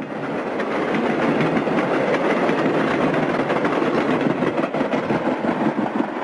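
Passenger cars of the Chessie Steam Special excursion train rolling past on the rails, a steady rushing wheel-on-rail noise that swells up over the first second.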